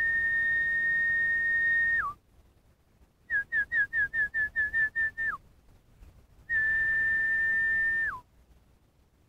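A person whistling: one long steady note that drops in pitch at its end, then a run of about ten quick falling notes, then another long note that drops away at its end.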